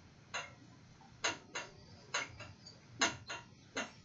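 Dry-erase marker drawing short strokes on a whiteboard, marking plus signs: a string of brief taps and scratches at uneven spacing, about two a second.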